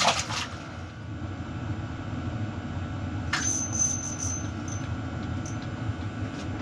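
Diesel heater running with a steady low hum. A short scuffing noise comes right at the start and another about three seconds in, followed by a brief high squeak.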